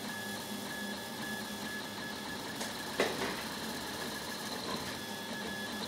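Prusa i3 3D printer at work: its stepper motors give a high whine that starts and stops in short runs as the print head moves, over a steady mechanical hum, with one sharp click about three seconds in.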